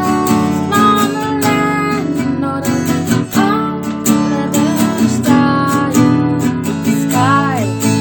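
Acoustic guitar strummed in a steady rhythm, playing chord accompaniment for a song.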